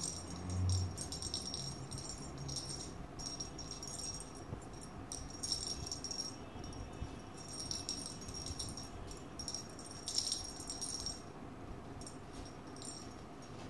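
Small jingle bell on a cat wand toy jingling in irregular bursts as a kitten bats and bites at it. A low thump comes about half a second in.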